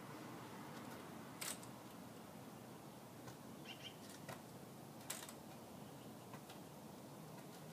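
Faint outdoor background hum with a few light, sharp taps, the clearest about a second and a half in and about five seconds in, and a brief bird chirp near the middle.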